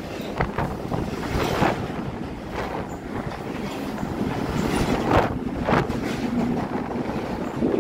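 A double-stack intermodal freight train passes close by: a steady rumble of wheels on rail with a few sharp clacks. Wind buffets the microphone.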